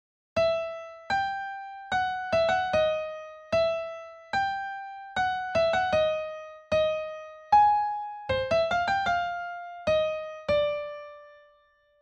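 Piano playing a slow melody of single notes, each struck and left to ring and fade. A quick run of notes comes about eight seconds in, and the last note is held and dies away.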